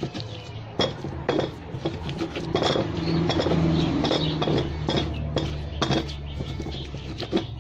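Kitchen utensil clinking and scraping against a mortar while the sambal of pounded chillies, garlic and hot oil is mixed: a string of irregular sharp taps, busier in the middle.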